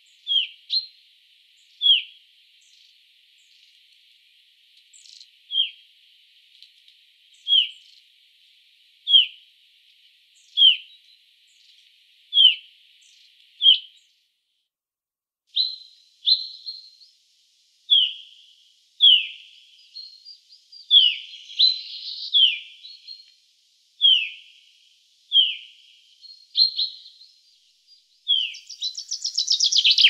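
Common chaffinch of the Black Sea subspecies giving a series of short call notes, one about every second and a half, with a brief silent break midway. Near the end it bursts into a loud, fast song phrase of many quick notes.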